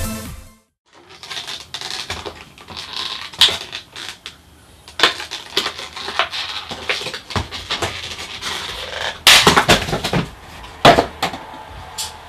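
Plastic and card packaging being handled and pulled apart by hand: a run of crackles, clicks and rustles, with two louder bursts of cracking about nine and eleven seconds in.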